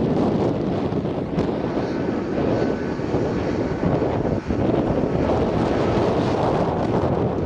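Airbus A320neo's twin turbofan engines running at low taxi thrust: a steady jet rush with a faint high whine.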